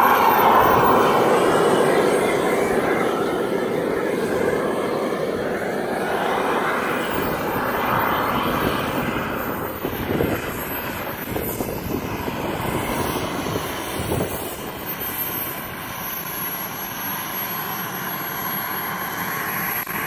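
The turbine engine of a radio-controlled Saab Viggen model jet running at low power as the model taxis. There is a steady rushing sound over a thin high whine that wavers in pitch and then holds steady, and the whole sound eases off slightly towards the end.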